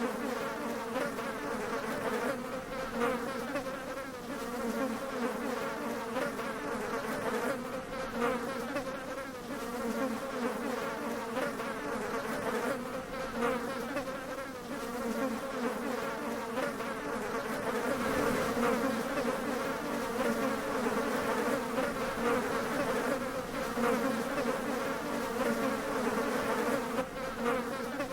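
Flies buzzing: a continuous drone whose pitch wavers slightly, with no break.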